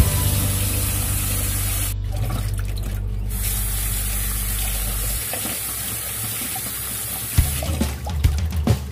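Tap water running and splashing onto bok choy leaves in a stainless steel mesh colander as the vegetables are rinsed, with background music underneath.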